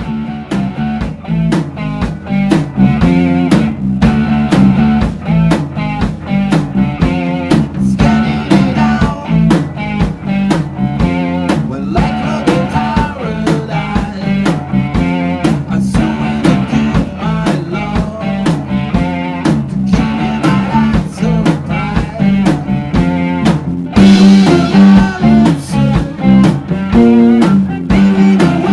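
Rock band music with drum kit and guitar playing a steady beat. It gets louder about 24 seconds in.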